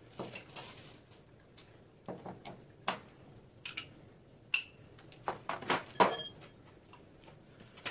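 Large steel socket and adapter being handled and fitted together, giving irregular metallic clicks, clinks and knocks. One clink rings briefly about halfway through, and the sharpest knocks come about 3 and 6 seconds in.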